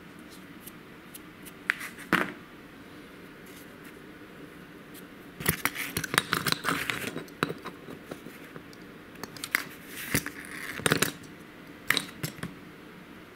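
Small parts handled on a cardboard-covered bench: sharp clicks, scraping and light clatter of a plastic servo and a pressed-steel flanged bearing. The sounds come in short groups, with a busier stretch of clatter about halfway through.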